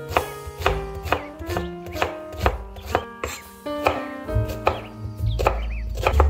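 Chef's knife dicing an onion on a wooden cutting board: crisp cuts hitting the board at a steady rhythm of about two a second, over background music.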